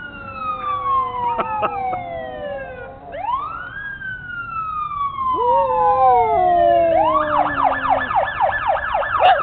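Fire truck siren going by: two long wails, each rising quickly and falling slowly, then a fast yelp of rapid up-and-down sweeps for about the last two seconds. A pug howls along in a lower, wavering voice in the middle.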